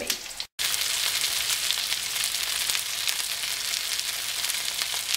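Breaded chicken breasts frying in hot peanut oil in a cast-iron skillet: a steady, dense sizzle with fine crackling. It starts about half a second in, after a brief silence.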